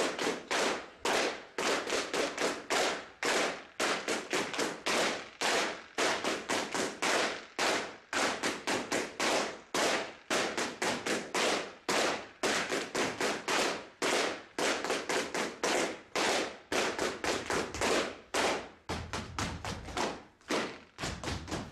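Rapid, sharp wooden strikes of sticks beaten against a stage floor, about three a second with a short ring after each, going on throughout; near the end they grow softer and less regular.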